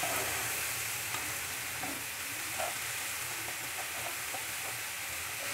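Chopped vegetables sizzling in mustard oil in a nonstick frying pan while a wooden spatula stirs them, with light scrapes and taps against the pan now and then.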